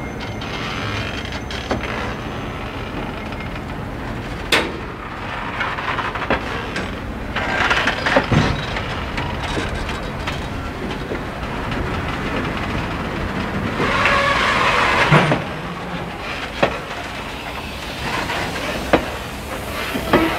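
Riveted steel passenger coaches rolling slowly past at close range: a steady low rumble of wheels on rail, with a few sharp clicks as the wheels pass over the rail joints. The noise swells louder and higher twice, about a third and about two-thirds of the way through.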